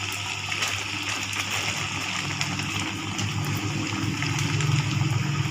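Raw-banana vadas deep-frying in hot oil: a steady sizzle with small crackles.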